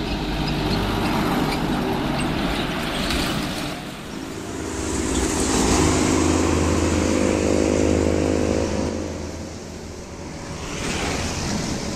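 Heavy diesel trucks passing close by on a highway, one after another: engine drone and tyre noise swell and fade three times, loudest about halfway through with a steady engine hum.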